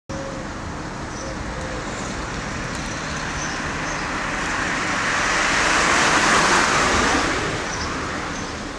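A road vehicle passing by: traffic noise that swells to its loudest about six seconds in, then fades away.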